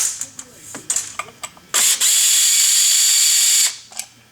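Cordless drill-driver running in a couple of short bursts and then steadily for about two seconds, backing out the bolts to take the muffler off a chainsaw.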